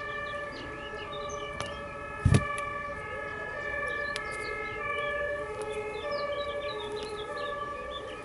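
Sirens wailing: several steady tones overlapping, with a warbling tone joining about three seconds in. A single sharp knock comes about two seconds in.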